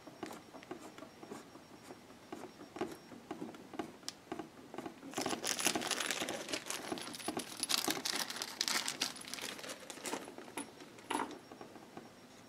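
Fingers turning the spring-loaded mounting thumb nuts of a CPU water block down tight: faint scratchy rubbing and small clicks of skin on metal, busier for several seconds in the middle, with one sharper click near the end.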